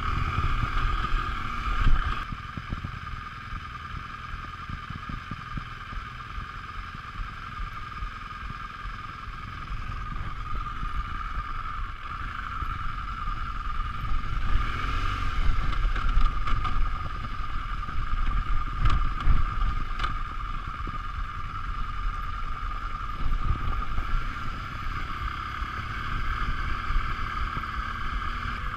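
BMW R 1200 GS LC boxer-twin engine running at low revs as the bike rolls down a rough gravel trail, its note rising and falling once about halfway through. Knocks and rattles from the tyres and suspension over stones come thickest in the second half.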